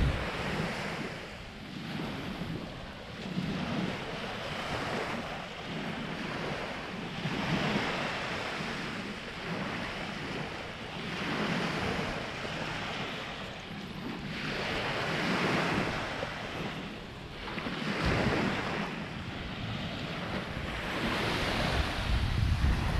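Small waves washing onto a sandy beach, swelling and falling back every three to four seconds, with wind buffeting the microphone, heaviest near the end.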